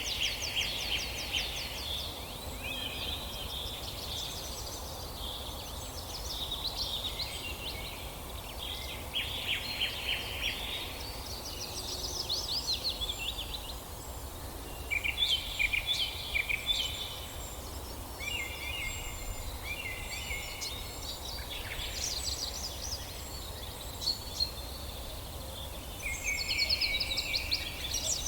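Birds calling in short bursts of rapid chirping, trilled notes, about a dozen bursts with short gaps between them, over a steady low background noise.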